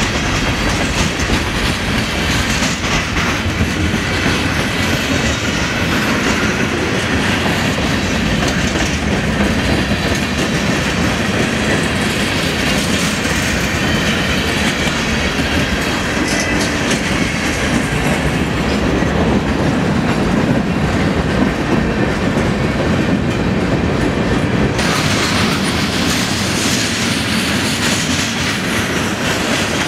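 Freight cars of a slow manifest train rolling past at close range: a mix of boxcars, covered hoppers and tank cars. Their steel wheels give a loud, steady rumble and clatter on the rails.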